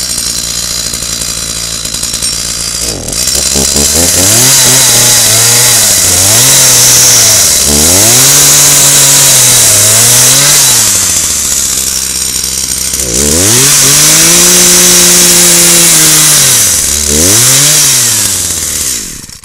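Two-stroke chainsaw idling, then revved up hard several times, its engine note rising and falling, with one long held rev. The engine cuts off suddenly near the end.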